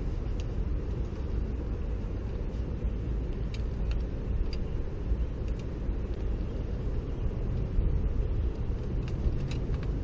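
A steady low rumble with no clear pitch, with a few light clicks and taps scattered through it as fishing rods and gear are handled on the boat.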